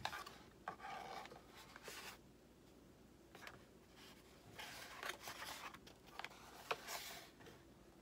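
Hands moving and setting down a foam RC jet wing panel: scattered light rustling and scraping with a few sharp clicks.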